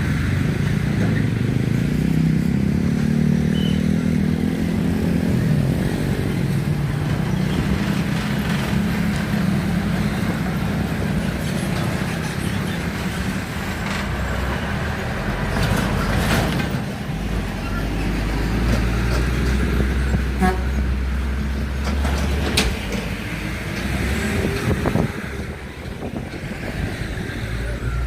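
Heavy road traffic at a railroad crossing: the diesel engines of large trucks and buses running close by, a loud deep rumble. One engine revs up over the first few seconds, then falls back.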